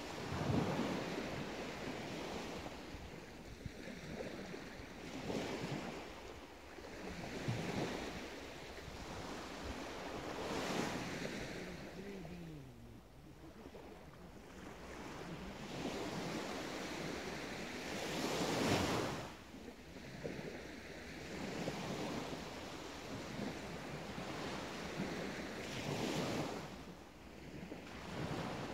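Small waves breaking and washing up a sandy shore, the surf swelling and falling back every few seconds, with the loudest surge about two-thirds of the way through.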